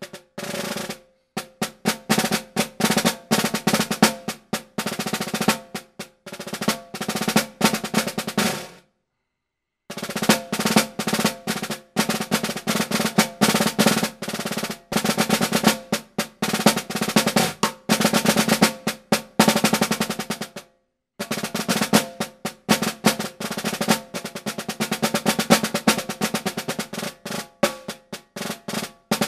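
Solo snare drum played with wooden sticks: fast rolls and accented strokes. The playing stops dead for about a second roughly a third of the way in, and breaks again briefly about two-thirds of the way through.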